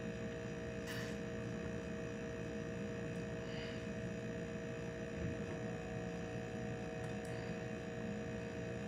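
A steady hum made of two close, unchanging tones, with a few faint ticks now and then.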